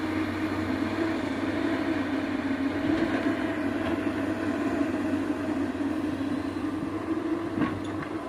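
Diesel engine of heavy earthmoving machinery running steadily, with a couple of short knocks near the end.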